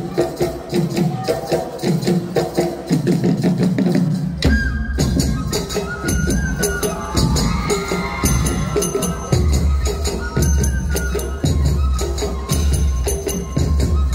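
Assamese folk orchestra playing: drums and jingling percussion in a fast, steady rhythm. About four and a half seconds in, deep drum strokes join and a high melody with gliding notes enters over the beat.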